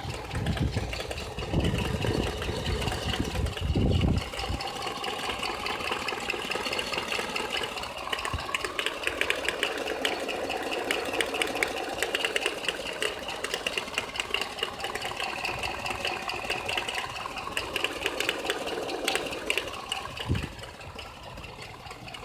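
ZMZ-402 petrol engine running with a fast, steady knocking tick that marks a fault in the engine. Some heavy low rumbling comes in the first few seconds, and there is one short thump near the end.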